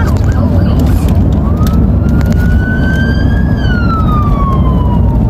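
Police car siren, a quick yelp at first, then one slow wail that rises for about two seconds and falls back. It is heard from inside a moving car over steady road rumble.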